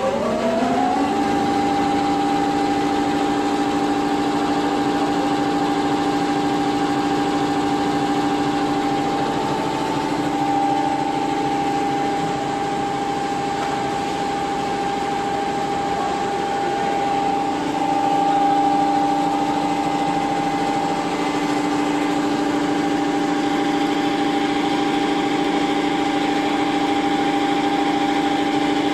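Multi-head computerized embroidery machine running at speed, its needle bars stitching and perforating a quilted foam panel: a steady mechanical hum over rapid needle strokes. The pitch dips briefly at the start, then settles and holds as the machine runs at a constant rate.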